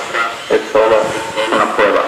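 A high-pitched human voice in short, broken stretches of babble or unclear speech, with a fainter steady background hum.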